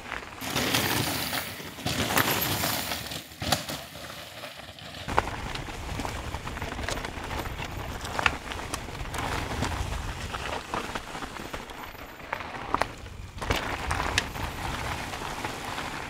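Mountain bike riding fast down a dirt trail: steady tyre noise on dirt with scattered clicks and rattles from the bike over bumps.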